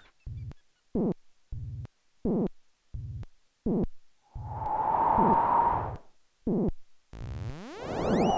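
Synthesized electronic sound effects: a string of short blips roughly every half second, then a swelling hiss with a steady tone in the middle, and rising sweeps with hiss near the end.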